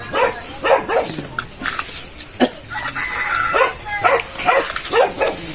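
A dog barking repeatedly in short barks.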